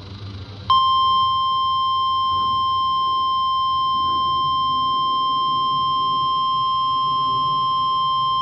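NOAA Weather Radio warning alarm tone, the 1050 Hz alert signal that is sent to activate warning receivers, sounding as one long, steady, loud beep. It starts about a second in, after a moment of low receiver hiss, and is played through the speaker of a RadioShack 12-254 weather radio during the station's Required Weekly Test.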